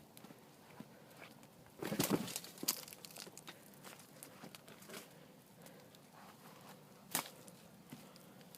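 Campfire crackling: burning wood ticking and popping, with a louder burst of crackling about two seconds in and one sharp pop near the end.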